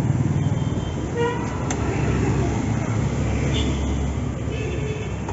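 Road traffic passing close by: a vehicle engine running low and steady, with a short horn toot about a second in and a few faint voices.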